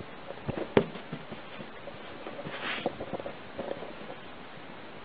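Light taps and small thumps as a kitten hops and scuttles about on carpet, with one sharp knock under a second in and a short breathy hiss a little after two and a half seconds.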